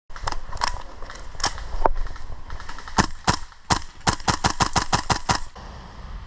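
Airsoft guns firing: a few scattered single shots, then a rapid string of about six to seven shots a second that stops short near the end.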